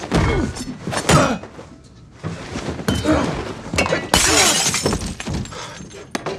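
Film fight sound effects: a quick series of hits and thuds, then glass shattering about four seconds in.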